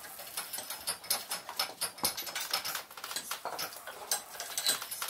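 Fast, irregular clicking and tapping with a hiss: workshop sounds of people moving about, played back sped up under a time-lapse.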